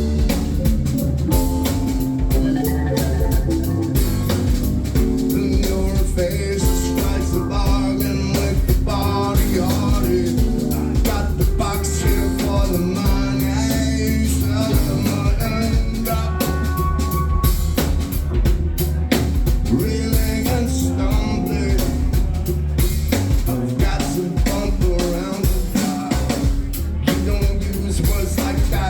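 Studio recording of a 1990s alternative rock band playing a stretch with no lead vocal: a steady drum kit groove over a heavy bass line, with guitar and other pitched parts layered on top.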